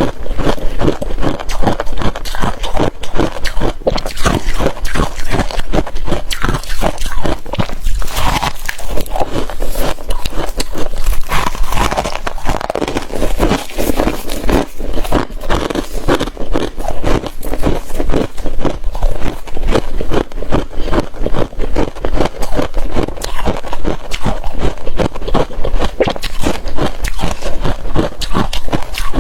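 Freezer frost being crunched close to the microphone: a dense, unbroken run of crisp crackles and crunches.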